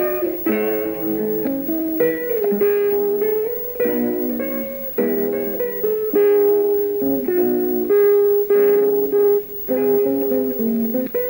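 Guitar music: plucked notes and chords played in short, uneven phrases.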